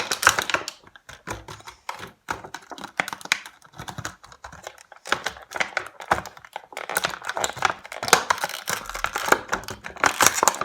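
Dense run of light clicks and clatters from small plastic toy pieces and their packaging being handled.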